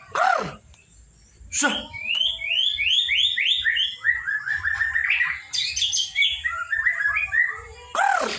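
Young white-rumped shama singing: a fast run of short chirping notes through the middle, with a loud call that rises and falls steeply at the start, another about one and a half seconds in, and a third near the end.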